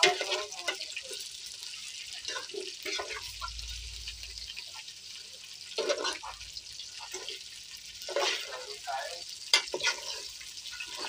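A metal spoon stirring and scraping chunks of potato and eggplant around an aluminium pot as they fry, in irregular strokes over a steady hiss.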